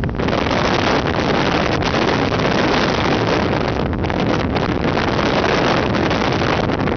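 Loud, steady rushing of strong wind and heavy seas, with wind buffeting the microphone.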